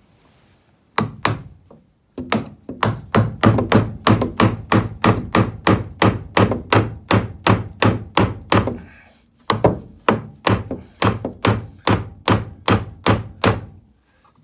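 Hammer driving the nails of a plastic electrical box into a wooden stud: two blows about a second in, then a steady run of about three blows a second, a short pause, and another run.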